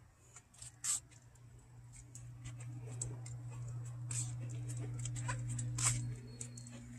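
A low, steady motor hum that swells over a few seconds and drops off near the end, with scattered light clicks and ticks over it.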